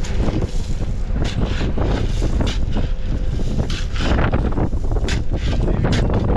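Strong wind buffeting the microphone with a steady low rumble, through which many short clicks and knocks sound.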